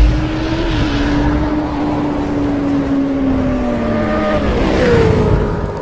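Motorcycle engine sound effect. A whoosh opens it, then a steady engine note slowly sinks in pitch, with a quicker drop in pitch about five seconds in, like a bike going past.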